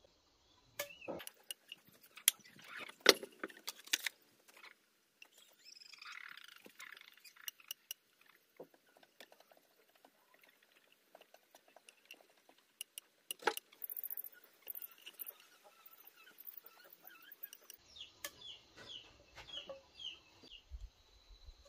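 Sparse sharp clicks and knocks of ink-marking tools being handled against a round wooden log, loudest in the first few seconds, with faint short high chirps now and then, most often near the end.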